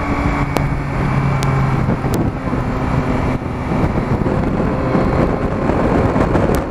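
Yamaha Tracer 9's inline-three engine running while the motorcycle rides along at speed, heard over heavy wind buffeting on the helmet-mounted microphone, with a few sharp clicks.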